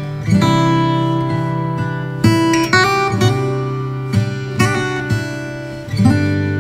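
Acoustic guitar music: chords strummed and left to ring, with a new strum every second or so.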